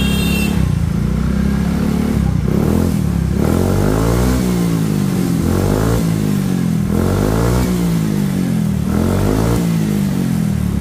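Suzuki Address scooter's single-cylinder four-stroke engine revved up and down repeatedly through a new full-stainless aftermarket exhaust, its pitch rising and falling every second or two. The note is soft, not loud or raspy.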